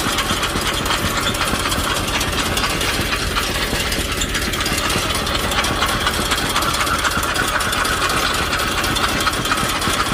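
Engine running steadily under load as it powers a homemade sweet potato harvester digging through the soil, with a fast, even, rattling beat.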